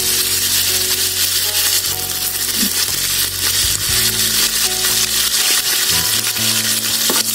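Hot oil sizzling steadily in a pot as freshly added curry leaves, green chillies and whole spices fry, with soft background music.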